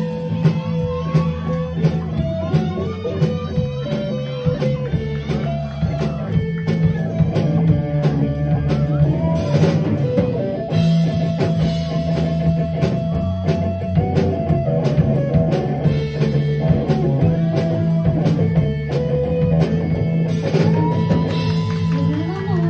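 A rock band playing live, with electric guitars, bass and a drum kit.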